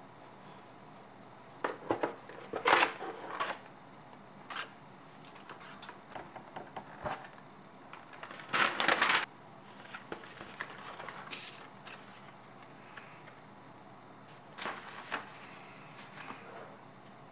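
A cardboard plastic-model kit box being slit open with a snap-off utility knife and its flaps handled, then a large paper instruction sheet unfolded: a string of short, irregular crackling and rustling bursts of cardboard and paper, the loudest about two to three seconds in and again around nine seconds.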